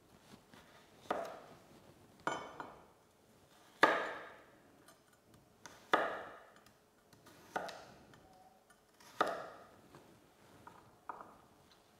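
Chef's knife cutting a carrot into pieces on a wooden cutting board: about nine separate knife strikes on the board, one to two seconds apart, each a sharp knock with a short ringing tail.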